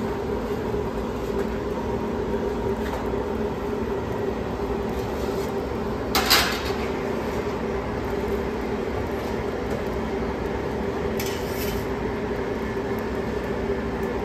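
Clatter of metal kitchenware in a pizzeria kitchen: one short, sharp clatter about six seconds in and a fainter one about five seconds later, over a steady mechanical hum.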